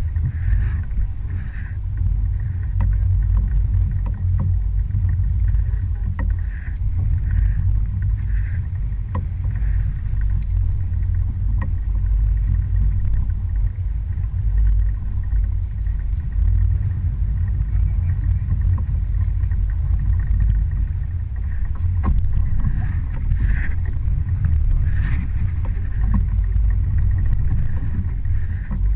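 Low, steady rumble of a fishing boat under way, its motor running with the rush of water against the hull, and a few faint knocks.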